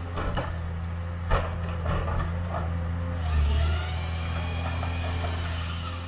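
Forestry harvester working a tree: its diesel engine runs with a steady low hum while wood cracks and knocks in the harvester head. About three seconds in a high hiss joins and holds to the end.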